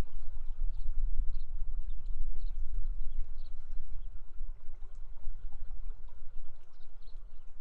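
Steady rush of flowing river water with a constant low rumble.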